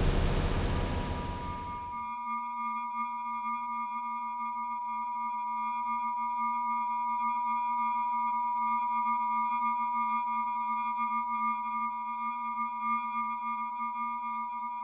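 A loud wash of noise fades out over the first two seconds, leaving a steady electronic drone of pure sine tones: a clear high tone with a lower hum beneath and faint higher tones, held without change.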